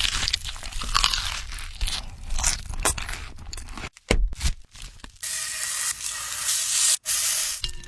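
Food-preparation sounds: a dense run of crunching, crackling and scraping, then after a short break a steady hiss for a couple of seconds that stops abruptly.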